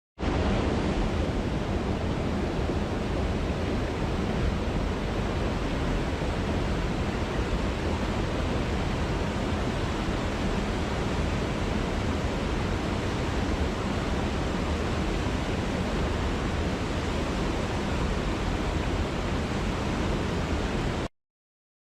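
Steady rushing noise, even from low to high pitch, that starts suddenly and cuts off suddenly near the end.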